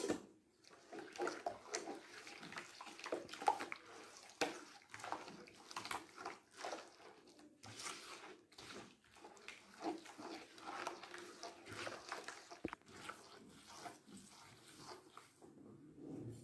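A bare hand mixing eggs into a wet batter of butter and sugar in an earthenware bowl: irregular squishing and sloshing strokes.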